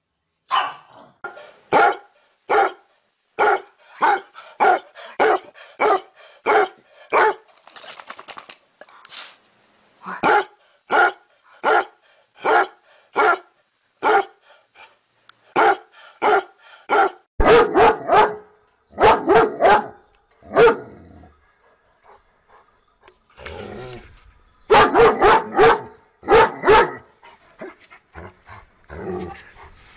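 Several dogs (a pug, a basset hound and a German shepherd) barking in runs of short, sharp barks, roughly one or two a second, broken by short pauses. The loudest barks come past the middle and again about three-quarters through.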